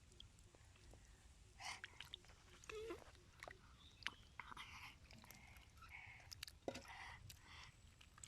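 Faint wet squelching and clicking of hands working in mud and water, in short irregular bursts that grow busier about halfway through.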